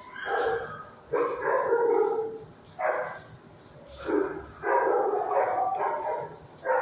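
Dogs barking repeatedly in a shelter kennel room, about six loud barks spread over the few seconds, each trailing off in echo.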